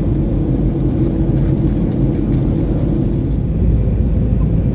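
Steady low rumble of a Boeing 737-800 in cruise flight as heard inside the cabin at a window seat: its CFM56-7B engines and the airflow over the fuselage. The tone shifts slightly about three and a half seconds in.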